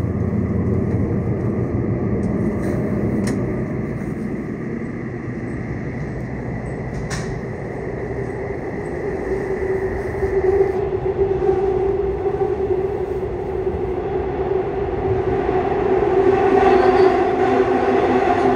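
Seoul Subway Line 6 train running, heard from inside the car: a steady rumble of wheels on rail, with the whine of its Mitsubishi IGBT-VVVF inverter and traction motors growing stronger about halfway through. A couple of faint clicks come early on.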